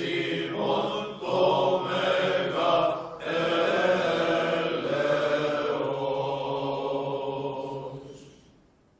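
Choral chant: several voices singing slow, long-held notes, fading out near the end.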